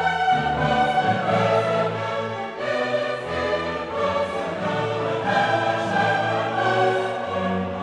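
Orchestral music with a choir singing held notes.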